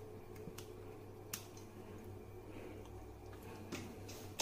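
Scissors snipping fresh coriander leaves: a couple of sharp snips in the first second and a half, then a few fainter clicks near the end, over a faint steady low hum.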